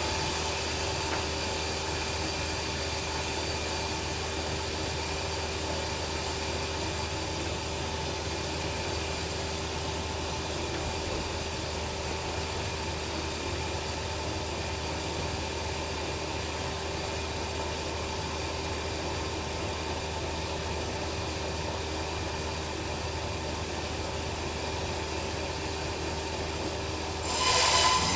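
Bandsaw sawmill running steadily without cutting, a constant hum with a held tone. About a second before the end it gets suddenly louder and harsher as the blade enters the log.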